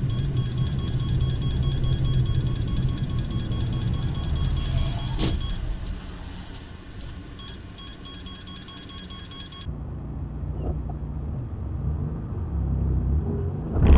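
Car engine and road noise heard from inside a moving car through a dashcam's microphone: a steady low rumble with a faint steady high whine, and a single sharp click about five seconds in. About ten seconds in the recording switches to another dashcam, whose rumble grows louder near the end.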